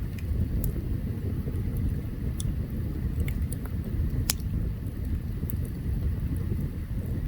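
Open campfire burning: a steady low rumble with scattered sharp crackles and pops, one louder pop about four seconds in.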